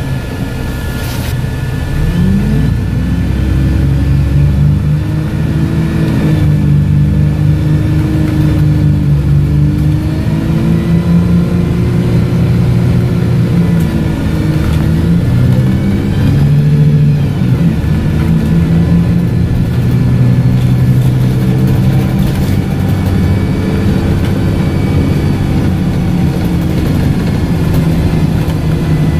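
Dennis Dart SLF single-decker bus with a Voith automatic gearbox under way, heard from inside the saloon: loud engine and transmission whine that rises and falls in pitch several times as the bus pulls away, accelerates and slows.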